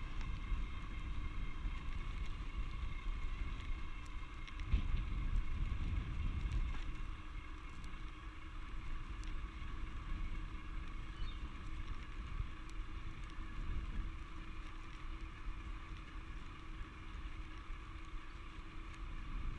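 Electric bike riding along a street: a steady whine from its motor over the rumble of tyres and wind. The rumble swells briefly about five seconds in.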